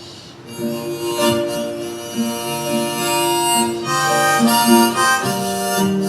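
Harmonica playing a melody of held notes over acoustic guitar, coming in about half a second in.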